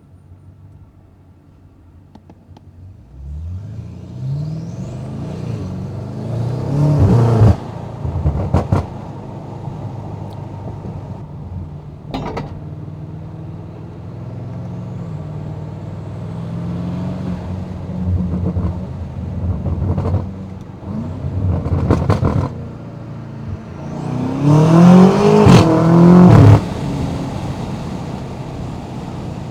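Twin-turbo V8 of a stage 2 tuned BMW M8 Competition accelerating hard in two pulls, the pitch rising, each cut off abruptly. Between them it runs steadily at part throttle, with sharp exhaust cracks several times.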